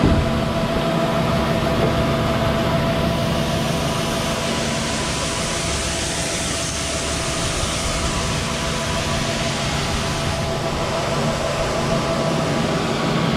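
Machinery running steadily: a constant motor hum with a few steady tones over a noisy hiss. The hiss brightens for a few seconds in the middle, and the highest tone fades near the end.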